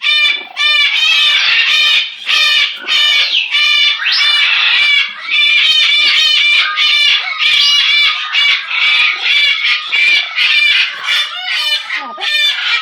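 Pet parrot calling in a long, loud, unbroken string of short, rapid squawks and chattering notes, with a few quick rising whistles mixed in.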